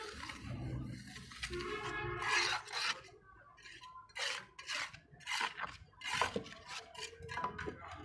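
Metal scoop scraping and smoothing wet cement across a flat tile mould in repeated rasping strokes, about two a second in the second half.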